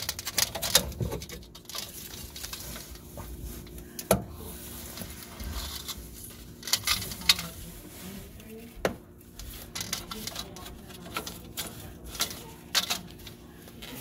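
Irregular clicks, knocks and scrapes of a curtain rod being worked down the narrow gap behind a water heater, bumping against the heater's casing and the wall. A steady low hum runs underneath.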